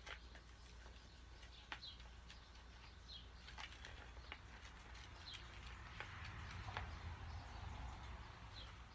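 Faint scattered clicks and soft scraping of a spoon stirring cornstarch into hand lotion in a bowl, a little louder about six seconds in, with a few faint high bird chirps.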